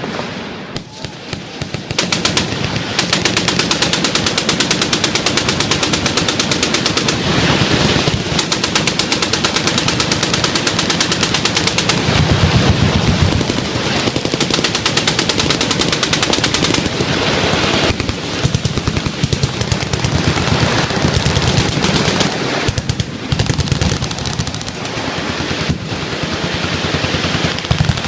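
Full-auto machine-gun fire: dense, overlapping bursts from several guns, almost unbroken after a brief lull in the first couple of seconds.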